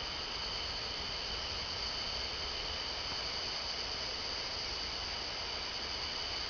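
Steady chorus of night insects: a continuous high-pitched drone that holds the same pitch and level throughout.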